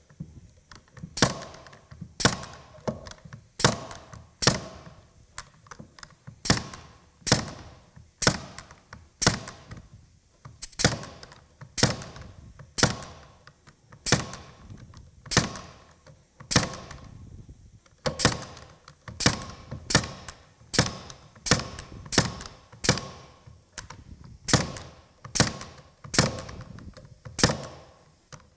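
Ridgid 18-gauge pneumatic brad nailer firing nail after nail into a wooden beam. Each shot is a sharp thunk, coming at a steady rate of about one every three-quarters of a second.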